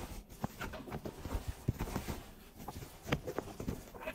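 Sewn fabric bag pieces being handled and moved on a table: faint rustling of cloth with scattered light taps and ticks.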